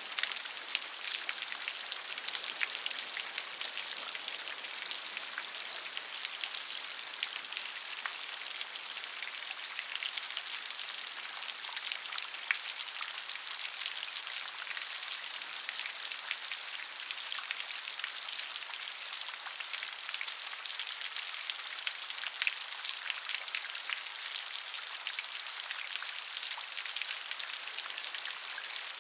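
Steady rain falling, a dense hiss dotted with many small, sharp drop impacts.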